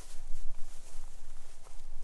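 Footsteps swishing through tall dry grass over a steady low rumble.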